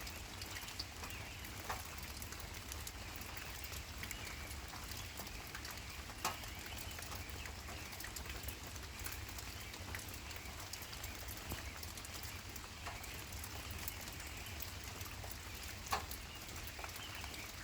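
Outdoor nature ambience: a steady patter of scattered ticks like falling drops over a light hiss, with faint bird chirps. Three sharper taps stand out, about two seconds in, near the middle and near the end.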